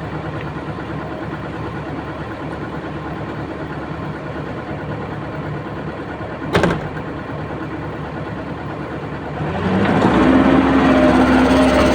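Komatsu excavator's diesel engine running steadily at idle, with a single sharp clunk about two-thirds of the way through. Near the end the engine steps up and runs louder and fuller.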